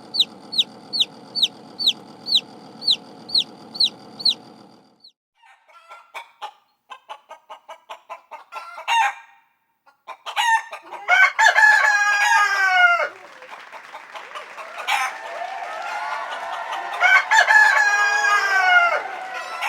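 Chickens: a quick run of high, falling chick peeps, about three a second, for the first few seconds, then a run of short clucks, then a rooster crowing twice, each crow lasting a few seconds.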